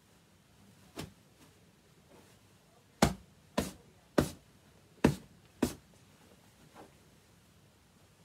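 Hands smacking a pillow to plump it: a soft pat about a second in, then five sharp slaps over about three seconds, and a faint one after.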